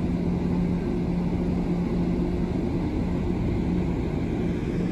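Steady low drone of the car ferry Sunflower Kirishima's engines and thrusters, one constant low hum under a rushing noise, as its wash churns the water alongside the hull.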